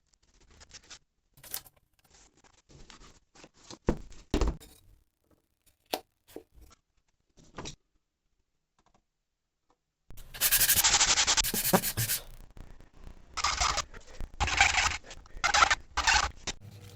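Hand work on a book being rebound. There are scattered taps and handling clicks at first, then, after a pause, a two-second stretch of rubbing or scraping on paper and board. Three shorter rubbing strokes follow.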